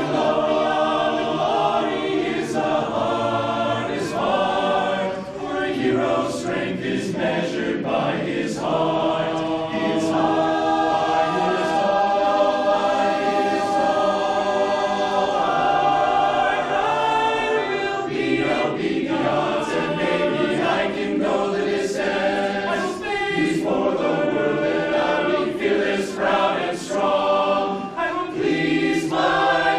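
Men's barbershop chorus singing a cappella in close four-part harmony.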